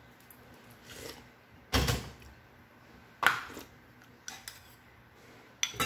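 A metal spoon clinking and knocking against a porcelain soup bowl: a few short, separate knocks and clicks, the loudest about two seconds in.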